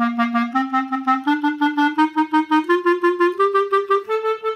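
Clarinet playing an articulation exercise: an ascending scale, each note tongued as four quick sixteenth notes before stepping up to the next.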